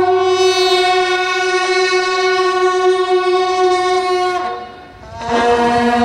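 Brass horns sounding ceremonial long notes. One long held note breaks off about four and a half seconds in, then a lower long note begins about a second later.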